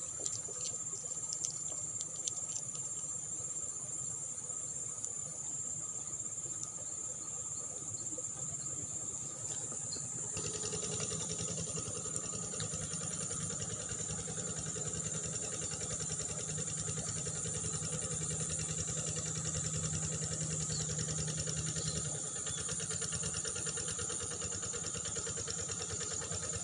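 Field insects chirring in a steady high whine. About ten seconds in, the low hum of an engine joins and holds, easing off a little after the twenty-second mark.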